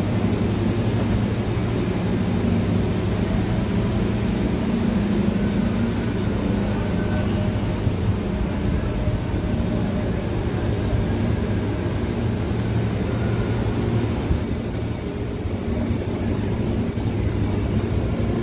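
Steady low hum from a diesel passenger train standing at the platform with its engines running.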